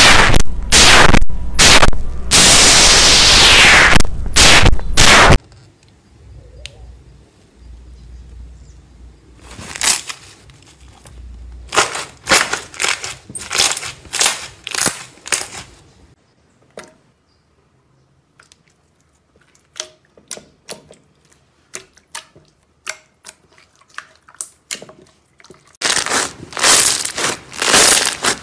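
Slime being pressed and squeezed by hand close to the microphone, giving bursts of crackling and popping. It is very loud and harsh for the first five seconds, drops to scattered quieter crackles and clicks in the middle, and turns loud and crackly again near the end as a foam-bead slime is squeezed.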